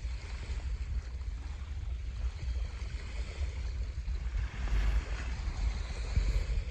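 Wind buffeting the microphone over the wash of surf on a sandy beach, the surf hiss swelling briefly about two-thirds of the way in.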